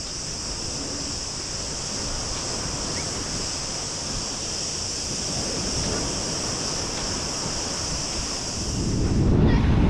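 Sea surf washing onto a sandy beach with wind, under a steady high hiss that cuts off suddenly near the end. Wind buffets the microphone more strongly in the last second.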